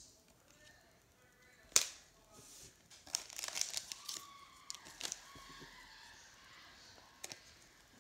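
Trading cards and plastic packaging handled on a wooden table: a sharp tap a little under two seconds in, then a second or so of crinkling plastic wrapper, with a few light clicks after it.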